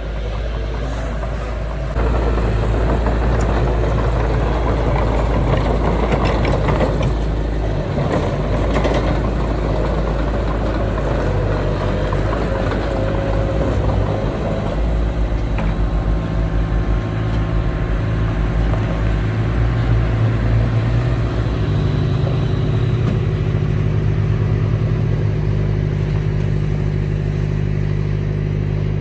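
Heavy diesel engine of earthmoving machinery working under load, growing louder about two seconds in and changing pitch as it revs up and down, with some clanking a few seconds in.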